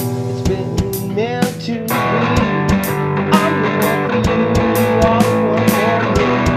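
Instrumental passage of a song: guitar with a few bending notes over a steady beat, no singing.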